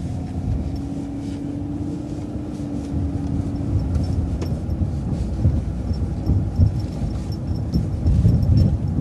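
Transit bus driving, heard from inside: steady engine and road rumble, with a hum for the first few seconds. A light, regular ticking starts about halfway through, and the rumble grows louder near the end.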